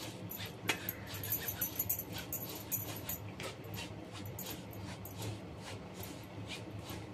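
Wire whisk stirring dry gram flour in a bowl, its tines scraping and ticking against the bowl in quick, irregular strokes as it breaks up lumps in the flour.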